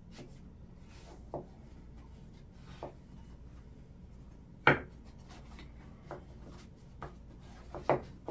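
Scattered light taps and knocks with soft rubbing: objects being handled on a table. The loudest tap comes about halfway through, another near the end.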